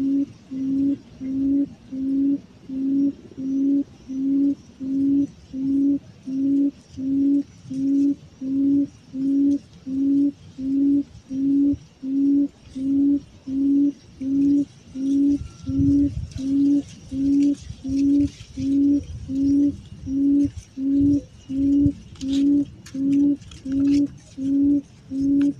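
Low hooting call of a decoy buttonquail used as a trap lure: a long, even series of one-note hoots, about three every two seconds, with faint rustling near the end.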